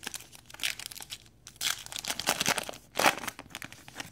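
Baseball card pack's crimped wrapper being torn open and crinkled by hand: a run of crackling, rustling bursts, loudest about three seconds in.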